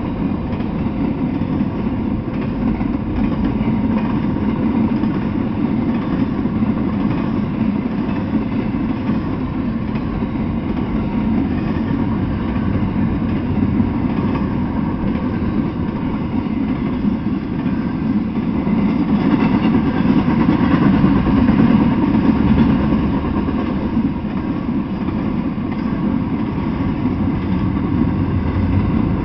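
Intermodal freight train rolling past: a steady rumble of wheels on rails and cars, swelling a little about twenty seconds in.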